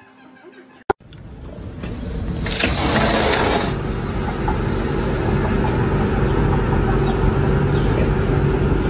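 A steady engine-like running noise that swells over about two seconds and then holds.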